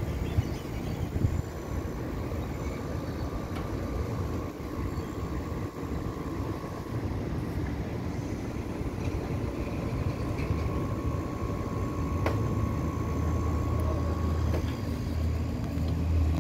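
Steady city traffic rumble from the streets below, with a faint steady hum over it; the low rumble grows louder near the end.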